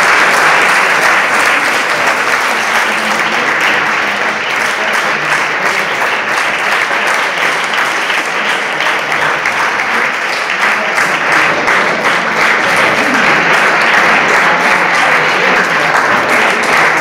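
Audience applauding: dense, steady clapping from a large crowd, a little softer in the middle stretch.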